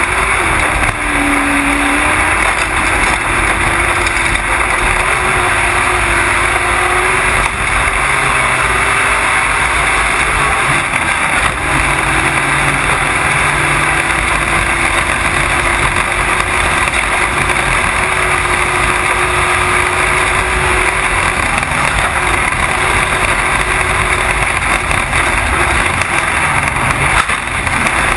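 Desert off-road race vehicle's engine running hard at speed, heard through an onboard camera under a dense, steady rush of wind and driving noise, its pitch shifting only a little.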